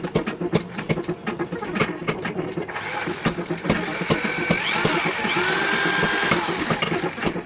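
A power tool working steel, with many sharp, irregular clicks and knocks throughout and a steadier whine and hiss building from about three seconds in.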